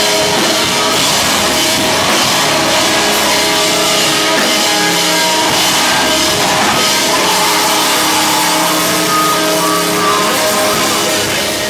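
Live rock band playing loud: distorted electric guitar, bass guitar and a drum kit driving on without a break.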